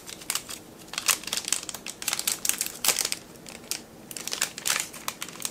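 Metallized anti-static bag crinkling and crackling in the hands as it is pulled open, in a dense run of irregular sharp crackles.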